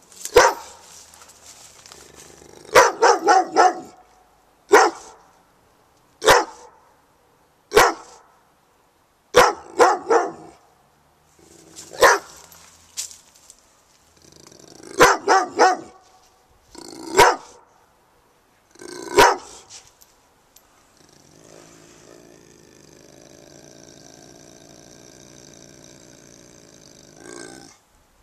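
A large black-and-tan female dog barking, in single barks and quick runs of two to four, at irregular intervals for about twenty seconds. After that a quieter steady hum with several held tones lasts about six seconds.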